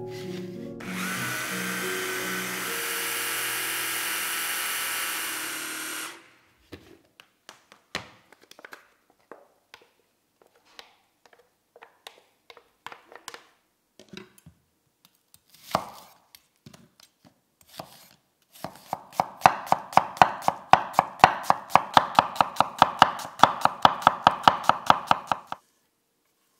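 Stick blender with a chopper bowl running for about five seconds, puréeing avocado, buckwheat and herbs into a thick hummus. Then come scattered light scrapes and taps of a wooden spoon in the jar and bowl. Near the end a knife chops fast and evenly on a wooden board, about six strokes a second, for around seven seconds, dicing red onion.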